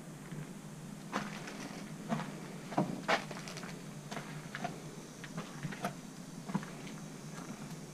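Footsteps crunching over debris on a littered floor: a scattering of irregular clicks and knocks, loudest around three seconds in, over a faint steady hum.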